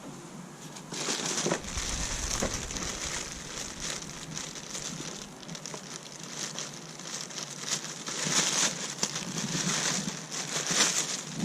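Irregular rustling and crackling with many small clicks, starting about a second in: handling noise.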